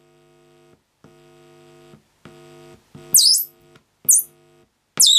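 Mains hum buzzing from a loudspeaker driven by a homebrew transistor audio amplifier, switching on and off in several stretches as a finger touches the potentiometer's upper input terminal and the body feeds mains hum into the sensitive input. About three seconds in, and again near four and five seconds, loud high whistles fall in pitch: the amplifier briefly breaking into oscillation.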